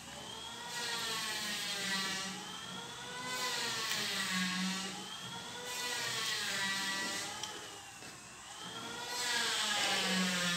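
A machine's whirring whine whose pitch rises and falls in slow waves every two to three seconds.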